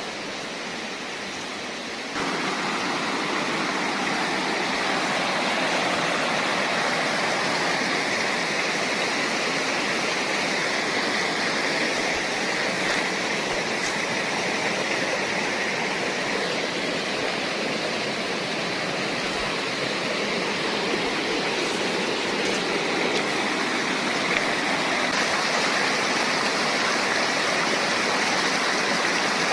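Shallow rocky river rushing over boulders: a steady sound of flowing water that gets louder about two seconds in.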